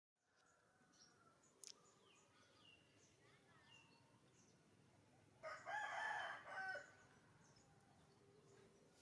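A rooster crows once, about five and a half seconds in, for about a second and a half. Faint bird chirps sound over quiet ambience.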